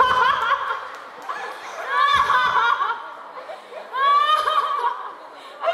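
A voice through a stage microphone and loudspeakers, in three short, high-pitched vocal outbursts about two seconds apart.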